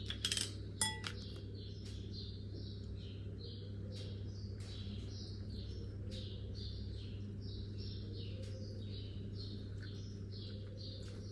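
A utensil clinks against a glass dish a few times in the first second, one strike ringing briefly. After that comes a faint, steady run of soft, high-pitched crackling over a low hum.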